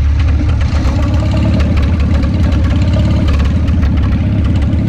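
McCormick-Deering Super M tractor's four-cylinder gasoline engine running steadily with a rapid, even firing beat as it pulls a heavy towed pickup truck.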